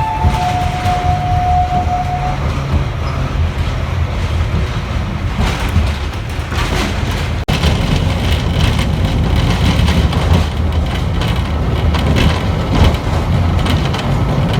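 Botchan Ressha, a diesel-powered replica steam train, running with a steady low rumble. A held whistle note ends about two seconds in.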